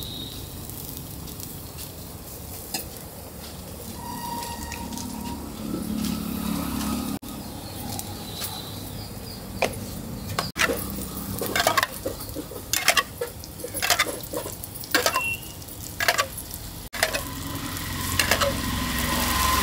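Pesarattu (moong dal dosa) batter sizzling on a hot flat iron griddle. In the second half, frequent sharp metallic clicks and clinks ride over the sizzle.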